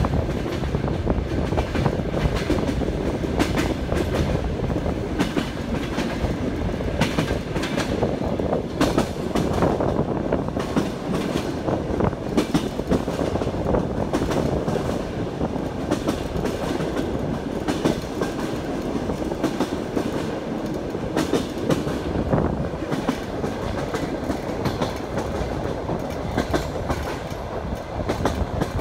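Passenger train in motion, heard from inside the carriage: a steady rumble with the wheels clattering over rail joints in frequent sharp clicks.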